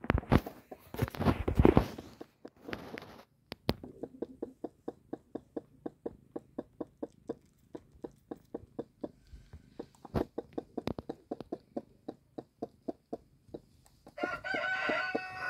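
Kittens suckling at the mother cat: a long, regular run of soft clicks, about four or five a second, after a few seconds of rustling from handling. A short pitched call comes near the end.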